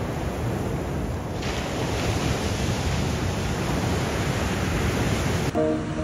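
Ocean surf breaking and washing up a sandy beach, a steady rushing noise that grows louder about a second and a half in. Music with held notes comes in near the end.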